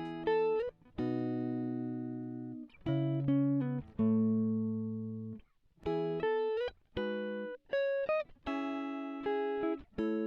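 Background music: plucked guitar notes played in short melodic phrases, each note ringing and fading.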